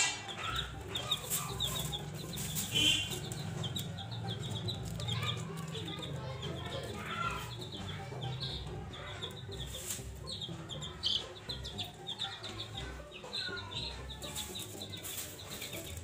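Baby chicks peeping: a continual run of short, high cheeps, several a second, over a low steady hum.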